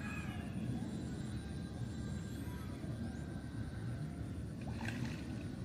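Steady low outdoor rumble, with a short rustle about five seconds in.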